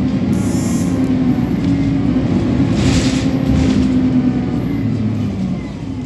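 Alexander Dennis Enviro300 single-deck bus's diesel engine running under way, heard from inside the saloon, with a brief hiss about three seconds in. The engine eases off near the end.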